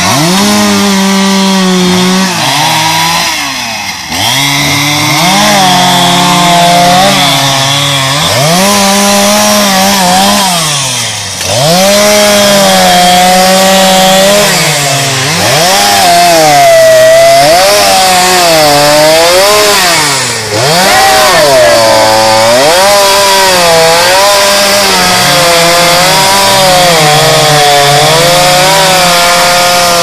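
Two-stroke chainsaw running loudly, its engine pitch rising and falling over and over as it is throttled up and cut into logs. The level drops off briefly three times.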